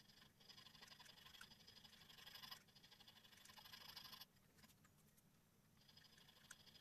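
Faint rasping of a flat file draw-filed along a small brass part held in a vise, smoothing away milling marks: three slow strokes, each a second or two long, with a short pause before the last.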